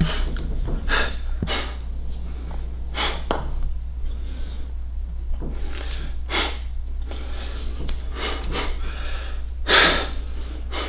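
A man's forceful breaths, about five sharp, noisy exhales and inhales, as he strains into bodybuilding poses, the loudest near the end. A steady low hum runs underneath.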